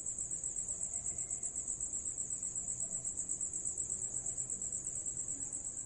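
A cricket chirping: a high, steady trill pulsing evenly about five times a second.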